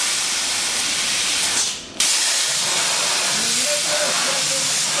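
CNC plasma cutter's torch giving a loud, steady hiss of air and arc as it cuts steel plate. The hiss drops away briefly just before two seconds in and then starts again abruptly as the torch fires for the next cut.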